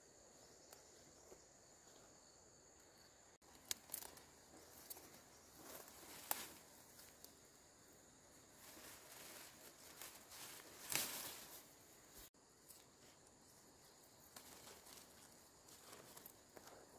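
Quiet rustling of fern fronds broken by a few short sharp snaps as fern shoots are picked by hand, with a longer, louder rustle about two-thirds of the way through. A faint steady insect drone runs through the first few seconds.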